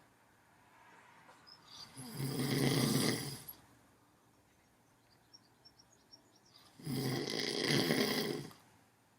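Two long snores from a sleeper, each lasting about a second and a half and about four seconds apart. Faint high whistling breath sounds come between them.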